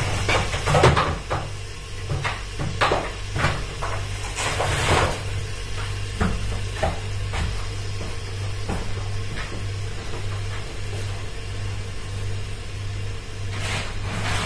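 Knocks and clatters of kitchen work, a dozen or so mostly in the first half, over a steady low hum.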